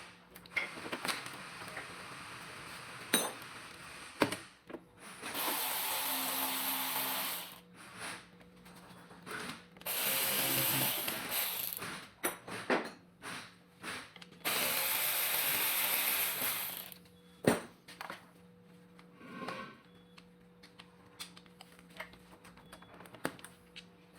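A power tool running in three bursts of about two seconds each, with sharp clicks and knocks of hand tools and parts in between.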